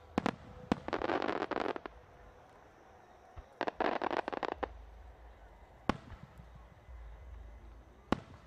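Aerial firework shells bursting. Two sharp bangs just after the start, another near six seconds and one near the end, with two stretches of dense, rapid crackling around one and four seconds in.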